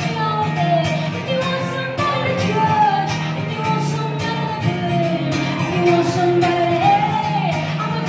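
A woman singing a melody of held, gliding notes over her own strummed acoustic guitar, performed live.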